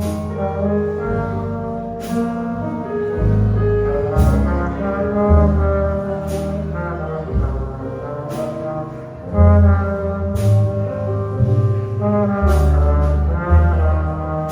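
Small jazz combo of trombone, piano, bass and drums playing a slow ballad. The trombone plays long held notes over low bass notes, and a crisp drum-kit stroke falls about every two seconds.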